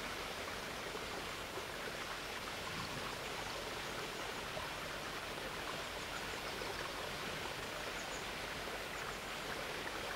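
A flowing stream, rushing steadily and evenly without a break.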